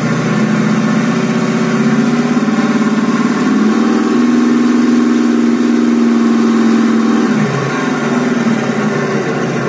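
A Beier SFR-1-HL sound module plays a sampled Sherman tank engine through the RC model's speaker. It idles, revs up to a higher steady pitch about three and a half seconds in, and falls back to a lower pitch a little after seven seconds.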